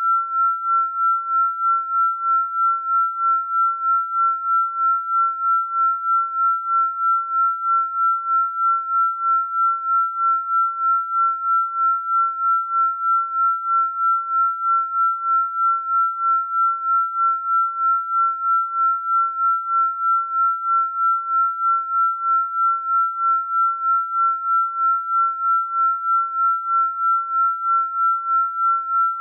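Electronically generated pure sine tone, one steady high pitch that swells and fades evenly about two and a half times a second, the beating of a binaural-beat frequency track.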